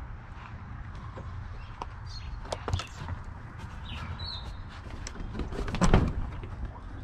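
Footsteps crunching on gravel, with scattered clicks and a heavier thump about six seconds in, over a steady low rumble.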